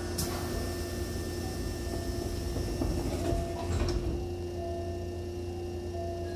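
A Hankyu 7000-series train's double sliding doors closing: a click as they start to move, then a thud as the leaves meet about three and a half seconds in, over a steady electrical hum.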